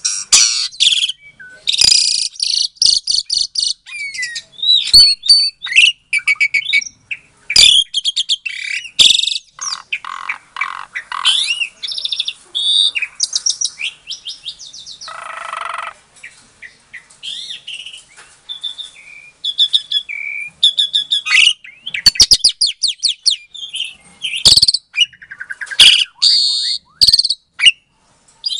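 Jalak suren (Javan pied starling) singing a long, varied song: rapid trills of short repeated notes, whistled up-and-down glides and harsher chattering phrases, with almost no pauses.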